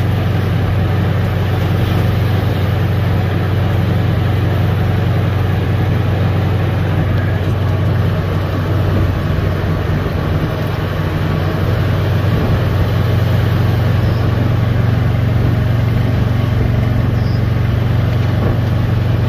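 Golf cart driving steadily along, a constant low rumble of the cart with road noise from its tyres.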